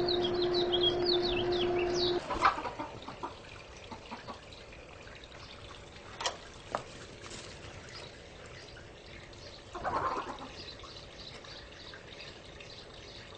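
Small birds chirping in quick, falling notes over a steady hum that cuts off suddenly about two seconds in. After that, a quieter outdoor background with a few sharp clicks and rustles and a short noisy burst near the middle.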